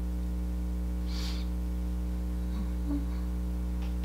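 Steady low electrical hum, with one faint soft swish about a second in.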